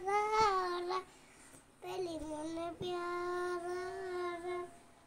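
A young girl singing unaccompanied in long drawn-out notes: three held phrases with short breaths between them.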